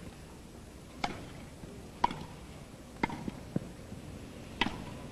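Tennis ball being struck back and forth in a rally: sharp pops of racket on ball about once a second, four in all, with a couple of softer knocks between the third and fourth.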